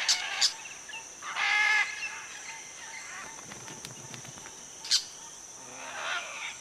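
Crimson-fronted parakeets giving a few short harsh calls, the longest and loudest about a second and a half in and a sharp one near five seconds, over a steady high insect buzz.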